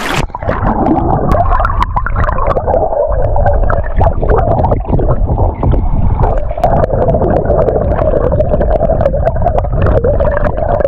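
River current heard underwater through a submerged camera: a loud, muffled rushing and gurgling with the high end cut off, and scattered small clicks.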